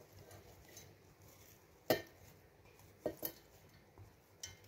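A few sharp clinks and knocks of kitchenware against a stainless-steel grinder jar as fresh coriander is tipped in from a glass bowl. The loudest comes about two seconds in, with a quick pair about a second later and another near the end.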